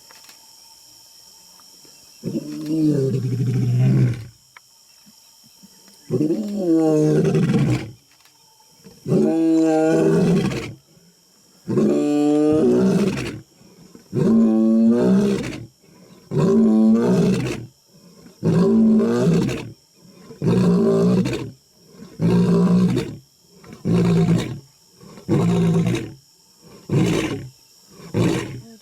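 A lion's roaring bout: about a dozen deep roars, the first few long, the rest getting shorter and coming closer together toward the end.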